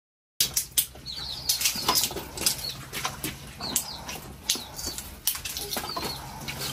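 Cooking-pot and metal-bowl handling: irregular sharp clicks and knocks, about one or two a second, with a few short high chirps and a low steady hum underneath.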